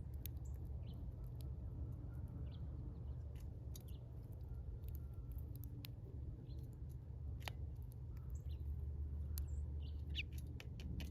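Small birds at a feeder giving scattered short chirps, mixed with sharp ticks and clicks, over a steady low rumble.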